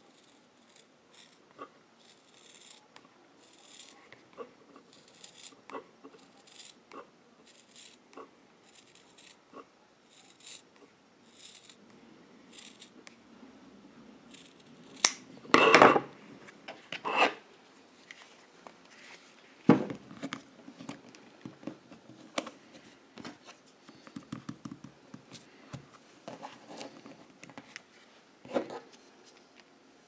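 Scissors cutting through leather, a run of short sharp snips. About halfway through come a few louder knocks and rustles, the loudest sounds, with one more sharp knock soon after and softer handling noises to follow.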